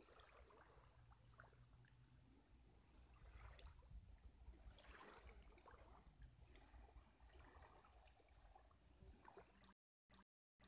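Near silence: faint, gentle lapping of lake water with a low rumble underneath. About a second before the end, the sound breaks into a regular on-off stutter of dropouts.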